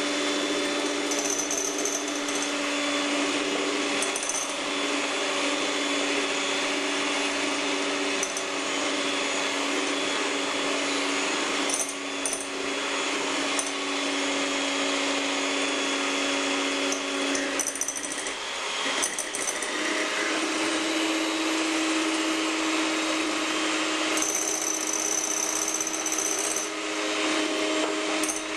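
Electric hand mixer running steadily, its beaters whipping eggs with sugar in a glass bowl. About eighteen seconds in the motor's pitch wavers, then settles slightly higher.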